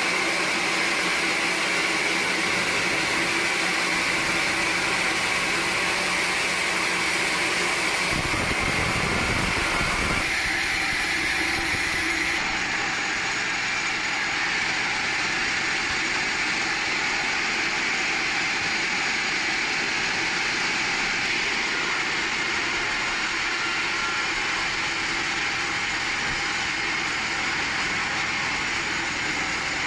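Sawmill machinery running steadily with a loud, even mechanical noise, and a brief low rumble about eight seconds in.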